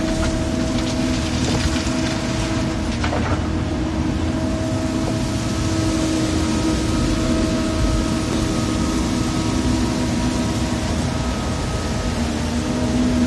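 Volvo excavator's diesel engine running steadily, with a few brief knocks and rattles in the first three seconds.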